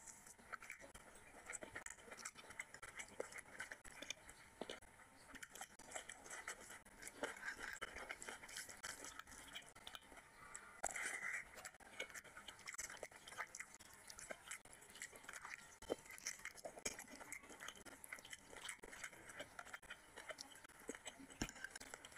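Close-up eating sounds of mutton head curry and rice: chewing and biting with many small wet clicks and crunches, along with fingers working through the sticky curry.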